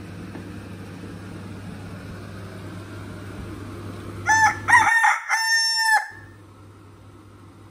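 A rooster crows once about four seconds in, a cock-a-doodle-doo of a few short notes ending in one long held note. Before it, a window air conditioner hums steadily.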